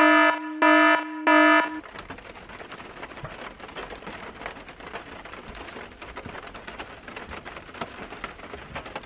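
An alarm beeps three times in quick succession, then rain patters steadily on the car's roof.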